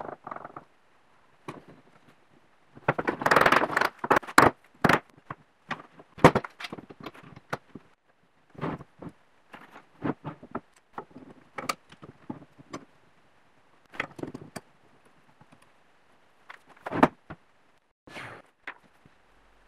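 Steel bar clamps and wooden pieces being handled on a wooden workbench during a glue-up: irregular clacks, knocks and scrapes as clamps are slid into place and tightened. There is a busier stretch of scraping and knocking a few seconds in.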